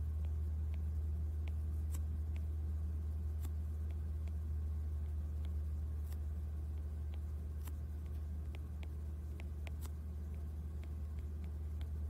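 A steady low hum, with faint, irregular light ticks of a stylus tapping and writing on a tablet's glass screen.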